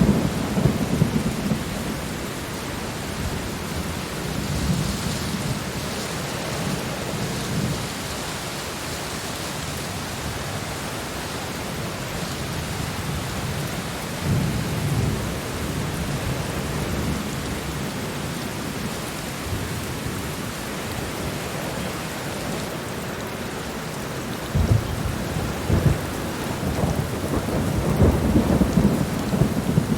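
Steady heavy rain with rolling thunder rumbling low several times, swelling again and building near the end.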